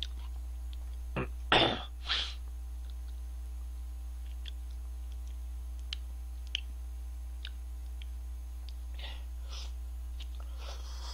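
A short, loud burst of breath about one and a half seconds in, with a smaller one just before and after it, much like a sneeze. A few light clicks follow. Near the end, cup rice noodles are slurped in, twice.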